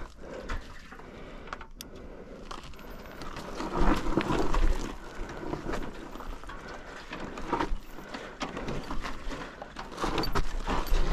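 Royal Enfield Himalayan motorcycle working slowly down a rocky, sandy off-road slope: a rough crunch of tyres over loose stones with many small knocks, louder about four seconds in and again near the end.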